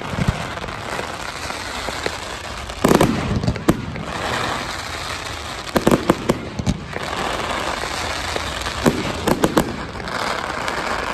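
Fireworks going off: clusters of sharp bangs about three seconds apart, with a continuous crackling hiss between them.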